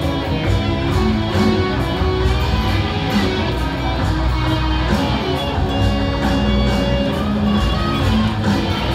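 Stratocaster-style electric guitar being played through an amplifier, picked notes over continuous music with a steady low bass underneath.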